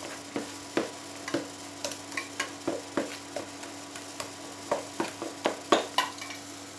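Spoon stirring and scraping thick banana fritter batter in a plastic bowl, with irregular clicks and knocks of the spoon against the bowl.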